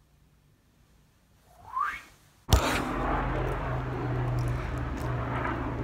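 Near silence with one brief rising sound, then about two and a half seconds in the sound cuts to outdoor ambience: the steady low drone of a distant airplane, echoing between buildings.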